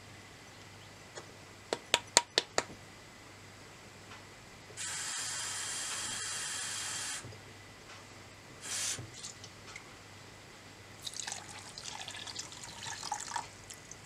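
A few sharp clicks about two seconds in, then water running steadily for about two seconds. Near the end, water is poured into a stainless steel saucepan of sugar and splashes onto it, making syrup.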